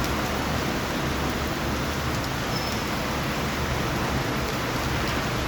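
Thunderstorm rain falling steadily, an even unbroken hiss.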